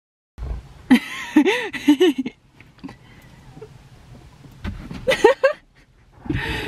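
After a brief moment of silence, women laughing and giggling while a snow brush sweeps snow off a car's side window, heard from inside the car.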